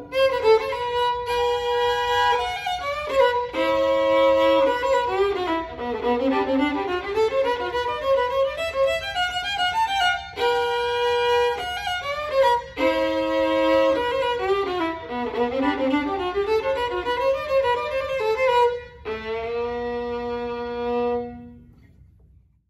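Solo violin playing a melody with quick rising and falling runs, closing on a long held final note that dies away near the end.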